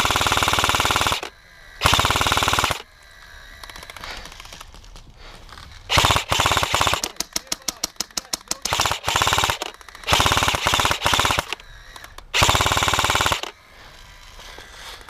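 Airsoft G&P Stoner 63 light machine gun firing repeated full-auto bursts of about a second each. A run of quick, separate shots comes in the middle.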